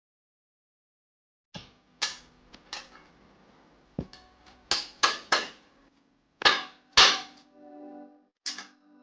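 A run of sharp knocks and clicks at uneven intervals, the loudest about five and seven seconds in, with music coming in near the end.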